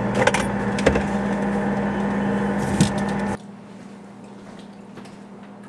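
A steady electrical hum with a few sharp clicks and crackles, which cuts off abruptly about three and a half seconds in and leaves faint room tone.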